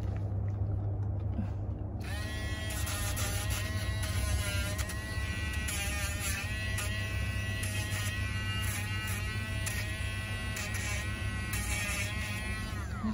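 Dremel-type rotary nail grinder switched on about two seconds in, running with a steady whine whose pitch dips and wavers as it is pressed against a dog's nails, then spinning down near the end.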